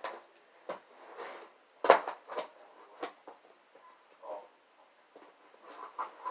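Cardboard TV box and its packing being handled: irregular scrapes, rustles and knocks, the sharpest about two seconds in.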